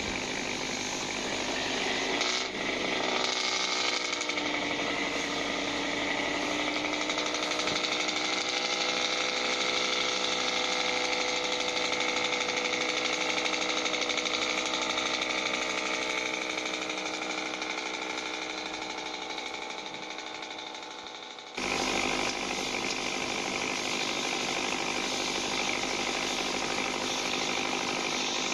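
Toy pop-pop steam boat (otok-otok boat) running, its candle-heated boiler making a rapid, continuous putt-putt pulsing. The sound fades slowly, then cuts back in abruptly at full level about three quarters of the way through.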